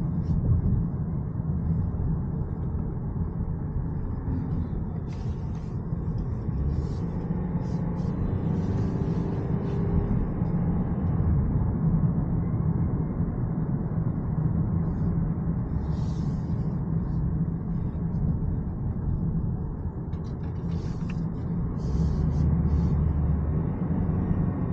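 Steady low rumble of road and tyre noise heard from inside the cabin of a 2023 Toyota Prius hybrid driving at moderate speed, with a few faint ticks and rattles.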